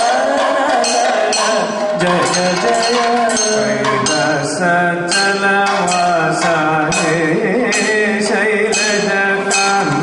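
Kathakali music: a singer chanting a slow melodic line over small hand cymbals struck in a steady, regular beat.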